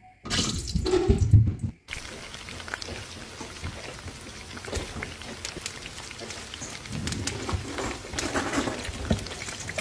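Whole red peppers frying in hot oil in a pan, sizzling and crackling. A loud burst lasting about a second and a half comes first, then a steady crackling sizzle with many small pops.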